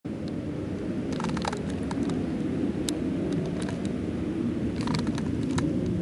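Steady low rumble of wind on the microphone, with scattered clicks and crackles from handling the camera, in small clusters about a second in and again around five seconds in.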